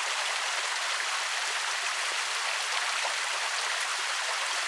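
Creek water running over small waterfalls: a steady rushing splash.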